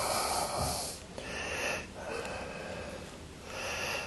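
A person breathing close to the microphone: about four noisy, hissy breaths of roughly a second each.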